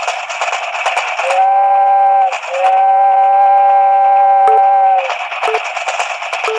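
A moving train rattling along, and its whistle blown twice in a two-note chord: a short blast, then a longer one, before the rattling takes over again.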